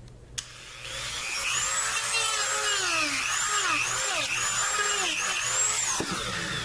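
Dremel rotary tool starting about half a second in, then sanding a small notch into plastic. Its high whine dips in pitch and recovers over and over as it bears on the work.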